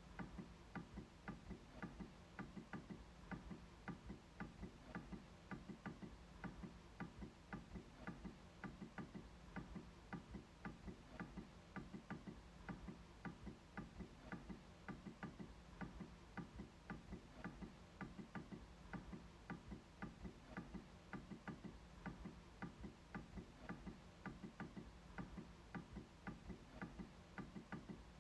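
MacBook trackpad clicking in a steady, even rhythm, about three faint clicks a second.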